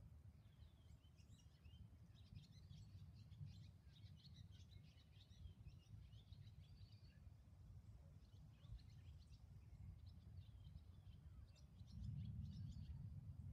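Faint chirps and twitters of small birds in quick scattered runs, over a low steady rumble that grows louder near the end.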